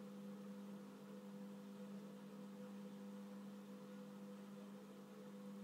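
Faint steady electrical hum over a low hiss, near silence otherwise.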